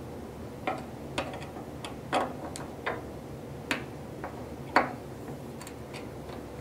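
A string of about ten irregular light clicks and taps as a hand tool and small screws are worked during assembly. The sharpest click comes about five seconds in.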